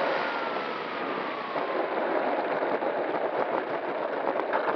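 Electric motor and propeller of an E-flite P-51 Mustang RC plane winding down in a falling whine as it lands, then the landing-gear wheels rattling over rough asphalt during the rollout, picked up by a camera on the airframe.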